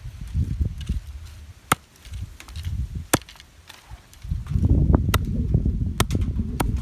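Sharp cracks of wood, five in all and a second or more apart, over low rumbling and rustling that grows louder about four seconds in.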